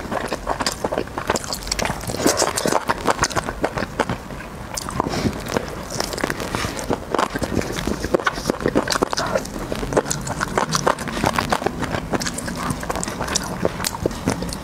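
Close-miked eating: meat being torn and bitten off a braised chicken drumstick and chewed, with a continuous patter of small wet mouth clicks.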